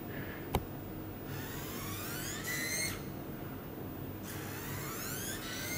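ClicBot modular robot's joint servo motors whirring as its gripper arm moves, twice, each a whine rising in pitch over about a second and a half. One short click comes just after the start.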